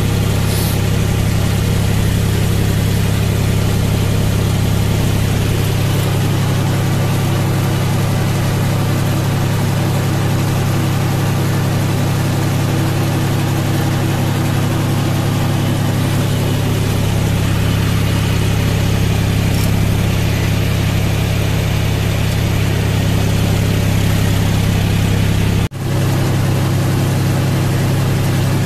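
A John Deere tractor's diesel engine runs at a steady drone while the tractor pulls a working rotavator through the soil. The sound cuts out for an instant near the end.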